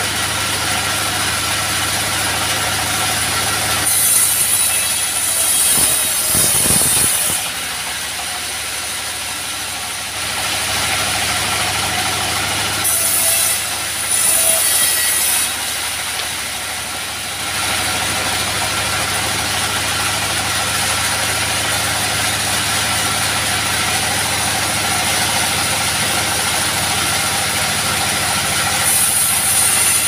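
Portable bandsaw sawmill running, its stationary diesel engine driving the band blade with a steady hum. A harsh hiss of the blade cutting timber rises and falls away three times, at about 4 seconds, about 13 seconds and near the end.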